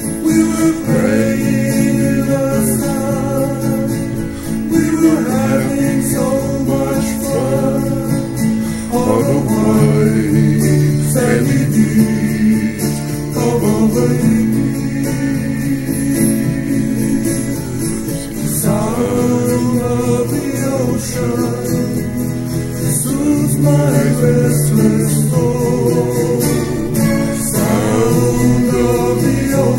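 A man singing a Hawaiian-language song to a slow, steady instrumental accompaniment of held chords with guitar.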